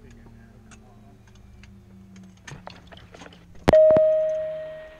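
Gulfstream G-IV cockpit during shutdown: a low hum slowly drops in pitch as equipment winds down, and the overhead-panel switches click faintly. Near the end comes a sharp click and then a loud single chime-like tone that fades away over about a second.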